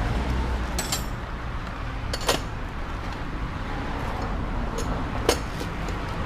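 A few short, sharp metallic clicks and taps, spaced irregularly, over a steady low hum: metal parts and tools being handled during work on a pickup's front suspension.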